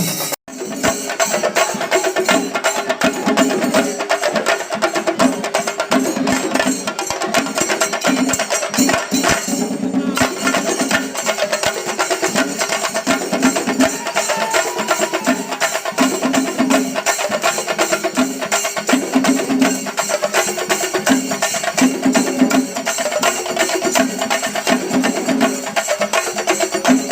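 Traditional Kerala temple percussion ensemble playing loud, fast, dense strokes, with a rhythmic cycle repeating roughly once a second over a steady held tone. The sound drops out for an instant about half a second in.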